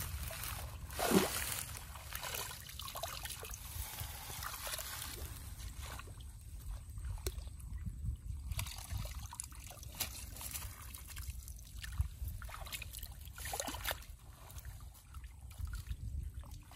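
Shallow muddy water sloshing and trickling as a woven bamboo scoop basket is pushed through it and lifted out, with one louder splash about a second in.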